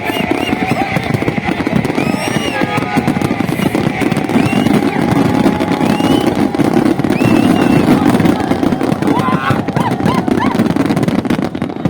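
Fireworks display: a dense, continuous rattle of bursts and crackling, heaviest around the middle, with short high whistles sounding over it.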